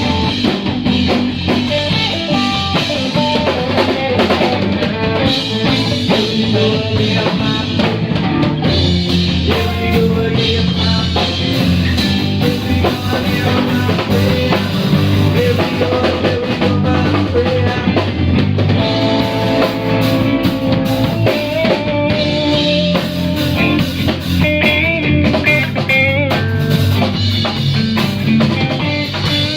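Band jamming instrumentally: drum kit with rimshots and bass drum under guitar playing held and shifting notes, steady and loud.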